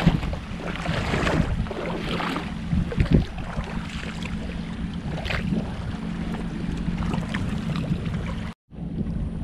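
Splashing steps through shallow seawater, over a steady low hum and wind on the microphone. The sound drops out for a moment near the end.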